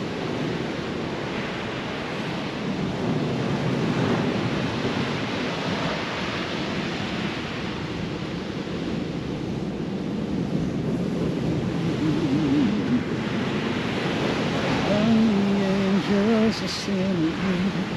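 Heavy North Sea surf breaking and washing up a sand beach, swelling and fading as each wave comes in, with gale-force wind buffeting the microphone.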